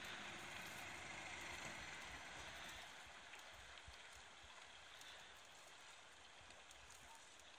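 Near silence: a faint, even hiss of outdoor ambience, easing slightly about halfway through.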